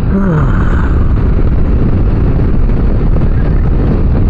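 Yamaha Ténéré 700 adventure motorcycle being ridden: a steady, loud rush of wind on the microphone over the running engine.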